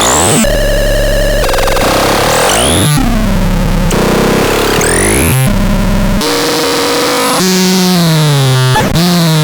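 Electronic synthesizer making harsh, noisy tones with sweeping pitch glides. About two-thirds of the way in, it changes to a buzzy tone that falls in pitch over and over.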